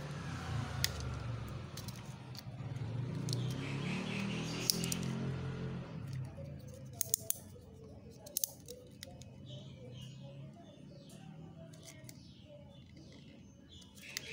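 Small clicks and snips of hands handling a plastic capsule bottle and a small cutting tool, cutting open supplement capsules. A low background drone fades out about six seconds in.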